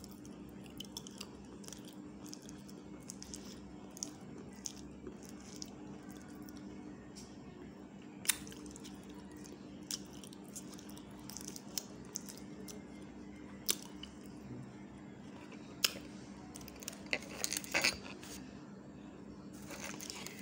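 Close-miked mouth sounds: scattered wet clicks and smacks of the lips and tongue, a few sharper ones about eight, fourteen and sixteen seconds in and a quick run of them near the end.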